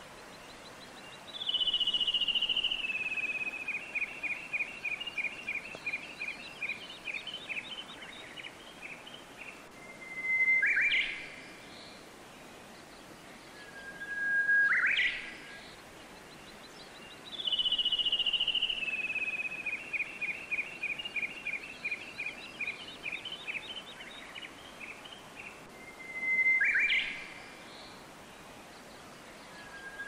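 A songbird singing: three short loud calls, each a held whistle that ends in a quick upward sweep, and twice a longer song that starts with a high trill and runs into a fading series of quick repeated notes. Under it runs a faint steady rush of flowing water.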